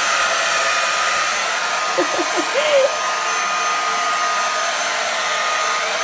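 Arçelik hand-held hair dryer running continuously: a steady rush of blown air with a faint, constant whine from its fan motor.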